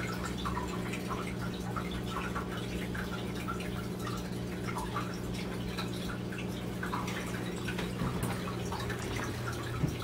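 Water dripping irregularly, with short plinks, over a steady low hum.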